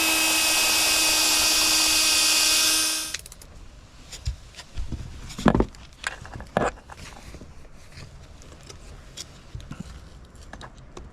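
A power drill runs steadily at one pitch for about three seconds, driving a screw to fasten an angle iron to the post, then stops suddenly. A few scattered light knocks and clicks follow.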